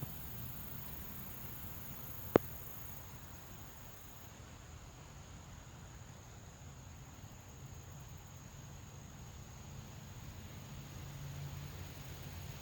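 Faint steady background noise with a low hum, broken once by a single sharp click a little over two seconds in.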